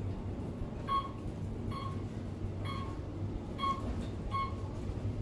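Otis Elevonic 411M elevator car in motion with a steady low hum, and five short electronic beeps spaced about a second apart.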